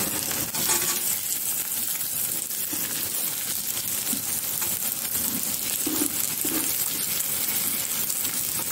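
Chopped vegetables sizzling in hot oil in a kadhai, with a metal spatula scraping and clinking against the pan as they are stirred.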